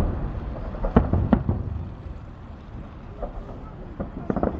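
Fireworks salute bursting overhead: a sharp bang about a second in, another soon after, and a quick cluster of bangs near the end, over a low rolling rumble of echoes.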